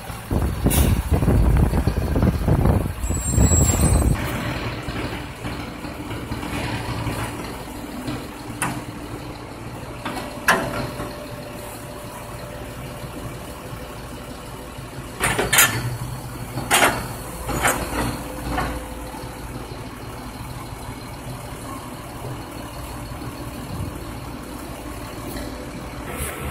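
Rear-loader garbage truck's diesel engine working hard for the first few seconds as the truck pulls up to a dumpster, then idling steadily. Several sharp metal clanks and bangs come through the middle of the stretch as the dumpster is handled at the truck's rear.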